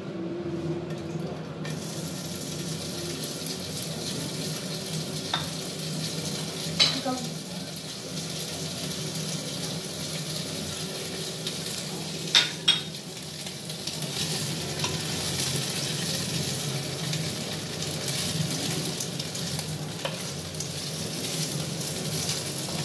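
Diced turkey frying in hot oil in a frying pan: a steady sizzle that starts abruptly about two seconds in, as the turkey goes in. The pieces are stirred with a wooden spoon, with a few sharp knocks against the pan, two close together about twelve seconds in.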